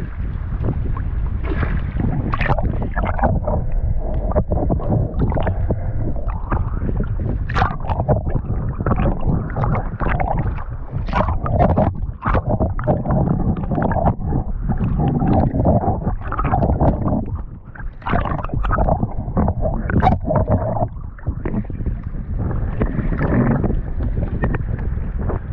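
Wind buffeting the microphone over water sloshing against a kayak hull, broken by many short, sharp sounds.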